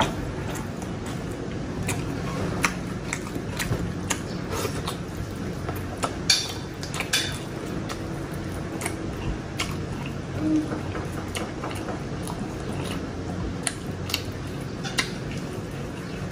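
Close-miked eating sounds: a person chewing grilled chicken eaten by hand, with many short, sharp mouth clicks and smacks scattered irregularly, over a steady low hum.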